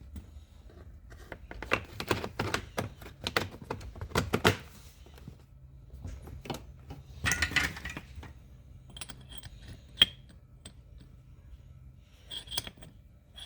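Irregular clicks, knocks and metallic clinks of small metal parts and tools being handled, a few of them ringing briefly.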